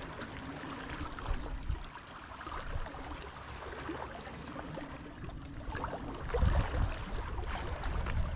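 Wind buffeting the microphone over the wash of the sea, with stronger low gusts from about six seconds in.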